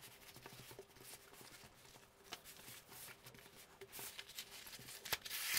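Faint rustling and crinkling of a large diamond painting canvas and its cover paper being handled and unrolled by hand, with louder crinkles near the end.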